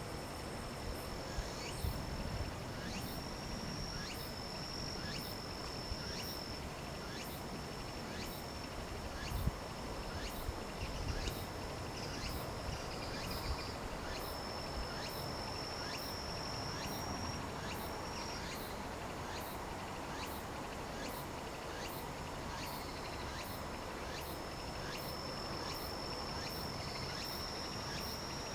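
Singing insects: a steady high trill that holds for several seconds at a time and breaks off now and then, over a regular high chirping a little over once a second. A few brief low thumps come early and about a third of the way in.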